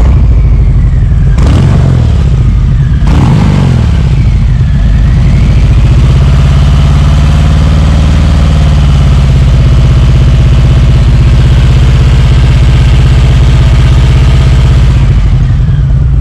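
Harley-Davidson Sport Glide's Milwaukee-Eight V-twin running, blipped up and down a few times in the first seconds, then revved in a slow rise and fall before settling to a steady idle. The revving is meant to show a rasping, tinny rattle on throttle, which the owner traces to a loose chrome exhaust heat shield with a broken clamp mount, but the engine and exhaust largely cover it.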